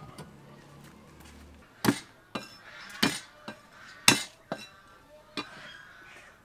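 A cleaver knocking on a wooden chopping board as garlic cloves are crushed under it: about seven sharp, uneven knocks.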